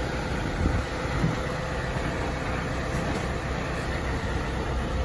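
Diesel vehicle engine idling steadily, a low rumble.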